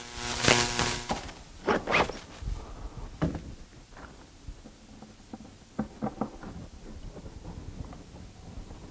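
Cordless drill motor running in a burst of about a second as a screw is driven into the cabinet panel. Several short knocks and clatters of wood and tools being handled follow.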